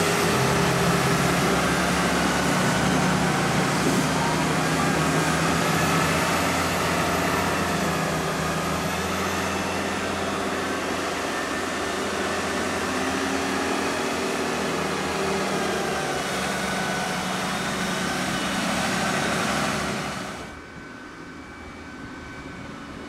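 Diesel engines of Valtra tractors working under load on a silage pit, pushing and climbing the grass with buck-rakes, the engine note rising and falling slightly. About 20 seconds in the sound drops suddenly to a quieter, more distant tractor engine.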